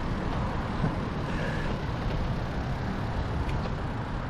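Steady rushing, rumbling noise of riding a touring bicycle along a road, with wind on the microphone.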